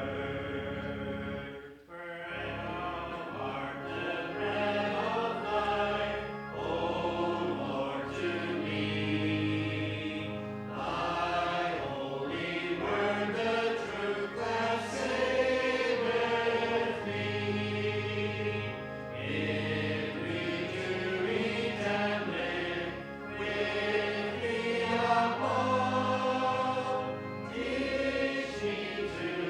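Church congregation singing a hymn together over held instrumental accompaniment, with a short break between lines about two seconds in.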